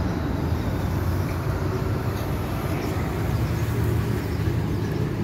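Steady low rumble of a running engine, even and unbroken.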